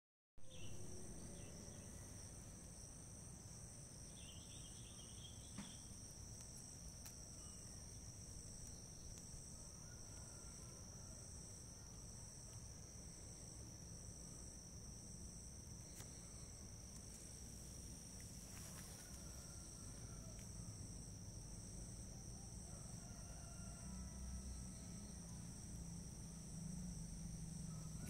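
Faint, steady insect trilling in two unbroken high-pitched tones, over a low background rumble.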